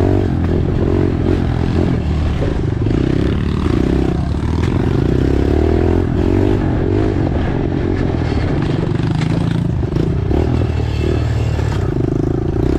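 Small pit bike engine heard from on board while riding a dirt trail, revving up and down again and again as the throttle is worked.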